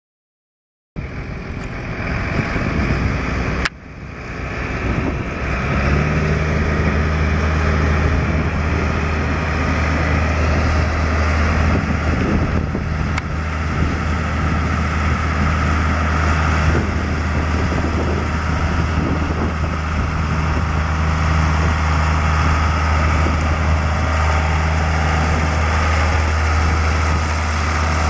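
A New Holland 8970 tractor's Ford 7.5-litre six-cylinder turbo diesel running steadily as the tractor drives. There is a short dropout about four seconds in.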